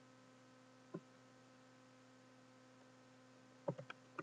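Steady electrical mains hum with a few short computer-keyboard key presses: one about a second in and a quick run of three near the end.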